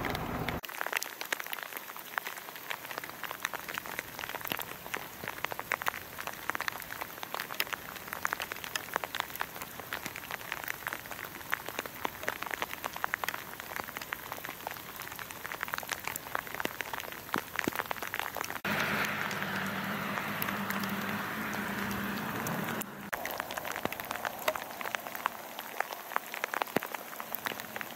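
Freezing rain falling on ice-glazed ground and vegetation: a dense, continuous ticking of many small drops. For about four seconds past the middle, a louder hiss and a low steady hum join in, then cut off abruptly.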